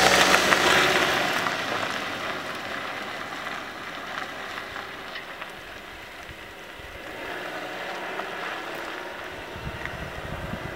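A car pulling away and driving off, its engine and tyre noise fading into the distance, with wind buffeting the microphone. The last of a piece of music dies away at the start.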